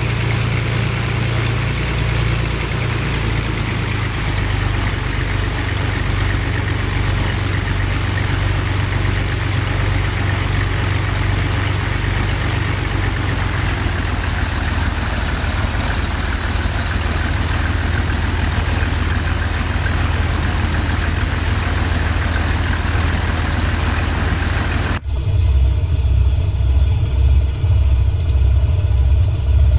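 Cessna Stationair amphibious plane's piston engine running steadily, a low drone with a wide hiss over it. About 25 s in the sound changes abruptly to a slightly louder, pulsing low throb.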